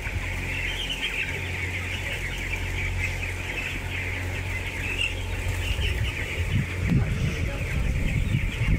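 A large flock of young broiler chickens peeping and cheeping continuously over a steady low hum. From about two-thirds of the way in, low scuffing joins in as boots turn over the floor litter.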